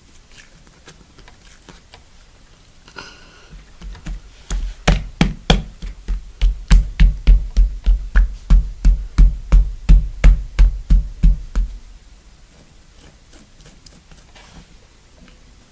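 Hands patting and slapping a large blob of glitter slime on a wooden floor: a steady run of quick, loud thumps, about three a second, starting about four seconds in and stopping near twelve seconds.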